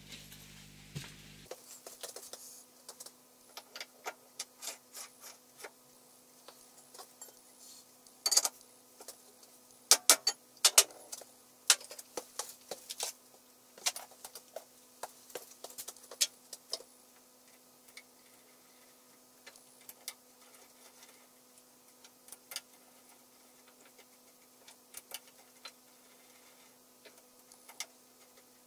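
Scattered metallic clicks and clinks of a small four-jaw independent chuck being fitted to the spindle of a Harrison 140 lathe and its jaws tightened with a T-handle chuck key. The ticks come irregularly and are loudest and thickest in the middle, over a faint steady hum.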